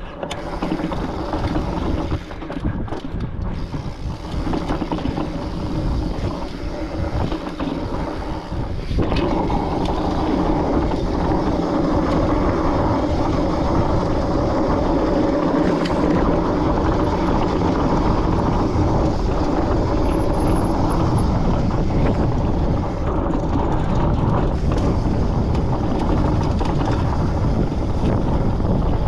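Wind rushing over the microphone while a Foes Mutz fat bike rolls over dirt and slickrock, its tyres and drivetrain rumbling underneath. The rush grows louder and steadier about nine seconds in as the bike picks up speed.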